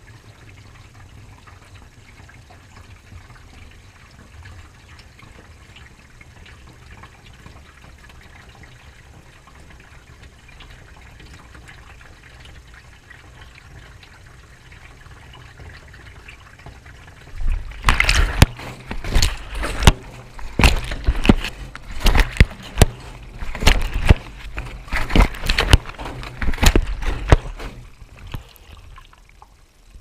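Miele front-loading washing machine during a wash cycle: a steady low hum with water trickling in, then a little past halfway the drum starts turning and water and wet clothes slosh and splash loudly in irregular bursts for about ten seconds before it settles down again.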